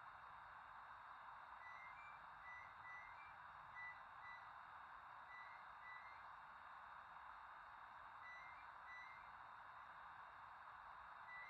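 Near silence with a steady hiss of room tone, and a faint high electronic ringtone: short runs of rising beeps that come back about every three seconds, a mobile phone that keeps ringing.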